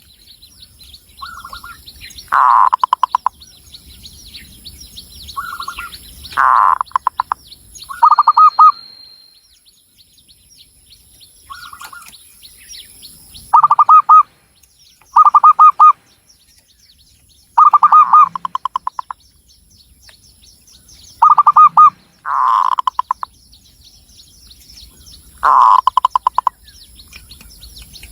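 Zebra dove (perkutut) cooing: short phrases of rapid, stuttering coo notes, repeated about every two seconds. Faint high-pitched chirping runs in the background.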